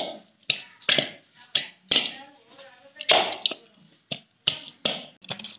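Crisp panipuri shells cracking: a quick, uneven run of sharp cracks and taps, about two a second, with faint voices in between.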